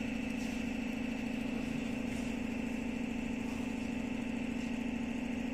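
A steady machine hum, a low drone with a fainter high whine over it, unchanging in pitch and level.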